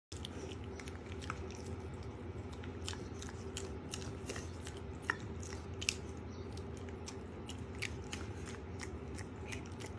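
Piglet chewing banana from a person's fingers: a quick, uneven run of small wet smacks and clicks of its mouth, a couple of them louder about five and six seconds in, over a faint steady hum.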